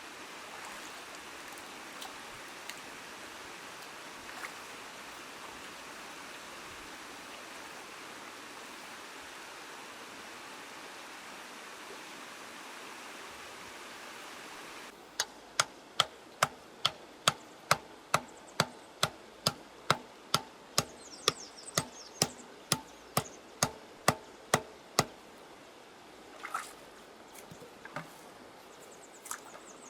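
Steady rush of running water. About halfway through, the sound changes abruptly and a run of about twenty sharp, evenly spaced knocks follows at roughly two a second, then a few scattered knocks.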